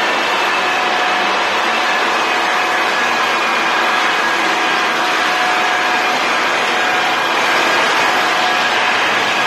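Floor sanding machine running steadily over a wood floor: a loud, even grinding hiss with a constant motor whine.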